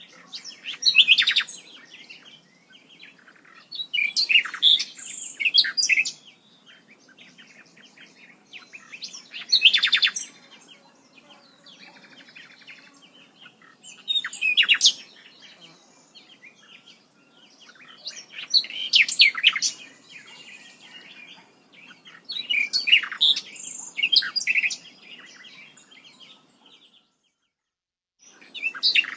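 A songbird singing short, loud phrases of rapid chirps and whistles, repeated every four to five seconds with quieter gaps between. The sound drops out completely for about a second near the end.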